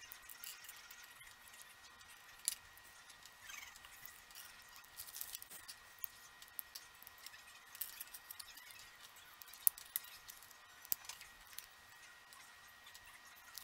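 Plastic LEGO bricks being handled and pressed together: scattered light clicks and small rattles, with a faint steady high tone underneath.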